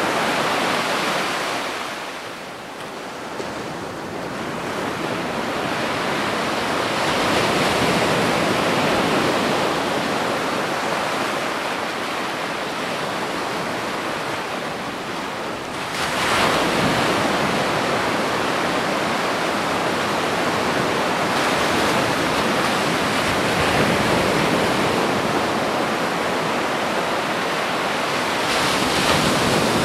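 Sea surf breaking and washing on the shore: a steady rushing that ebbs and swells, dipping a couple of seconds in and growing louder at about sixteen seconds in.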